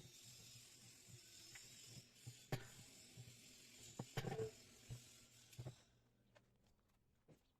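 Faint scattered clicks and knocks, loudest about two and a half and four seconds in, over a steady hiss that cuts off about six seconds in.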